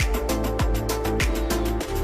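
Background music with a steady beat and a deep bass thump a little under twice a second.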